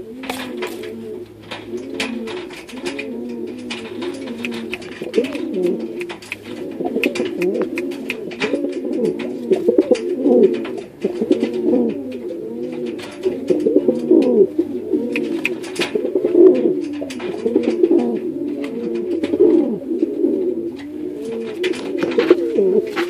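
Domestic pigeon cooing over and over, a fast run of rolling, overlapping coos from a bird circling and bowing in display and squaring up to a hand. Frequent sharp clicks and taps sound through the cooing as it scuffles against the hand.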